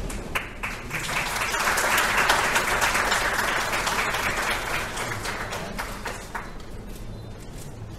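Audience applauding: the clapping swells over the first couple of seconds, then thins out and fades near the end.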